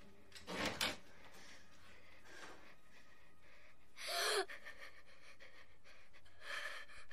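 A young girl's short, frightened gasp about four seconds in. Fainter breathy sounds come before and after it.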